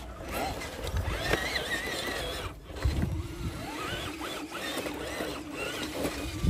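A 1/10-scale RC crawler's electric motor and drivetrain whining steadily as it crawls slowly through a rocky dirt rut, the whine settling in about halfway through. High wavering sounds come and go over it, and there are a few dull thumps.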